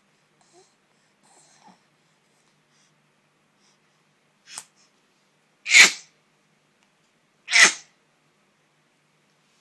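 A pet sneezing three times: one small sneeze, then two loud ones less than two seconds apart. The sneezing is set off by ash in the air.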